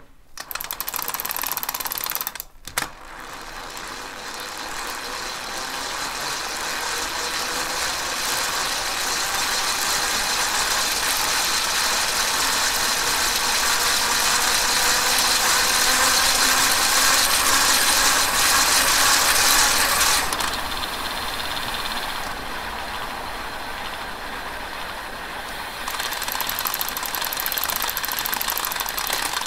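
Shimano Alfine 8 (SG-S501) planetary internal gear hub in its top, 8th gear, whirring as the pedals are turned by hand and the rear wheel spins, heard from right beside the hub. It runs on its original factory grease, which gives a dull, viscous-sounding whir rather than a ringing one. The sound breaks briefly about two and a half seconds in, grows louder until about two-thirds of the way through, then drops and changes.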